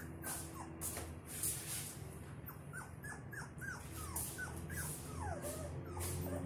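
A very young puppy whimpering in a string of short, high yips, each falling in pitch, about a dozen of them coming several a second in the middle.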